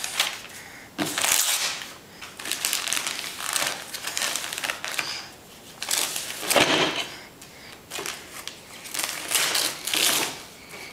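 Gift wrapping paper being torn and crumpled off a cardboard box by a toddler: a run of irregular rips and rustles, the loudest about six and a half seconds in.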